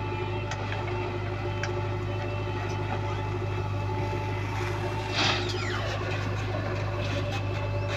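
Diesel engine of a JCB backhoe loader running steadily, with a brief hissing burst about five seconds in that trails off into a falling whine.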